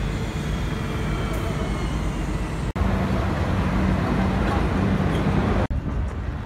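Outdoor city traffic noise with a steady engine hum, broken by two abrupt cuts, just under 3 s in and again near 6 s in.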